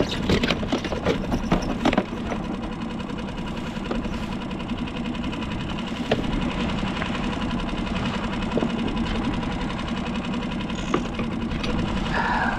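Penn Fathom star-drag conventional reel being cranked as a hooked yellowtail is wound in, the gears giving a steady mechanical whir. A quick run of sharp clicks comes in the first two seconds, with a few single clicks later.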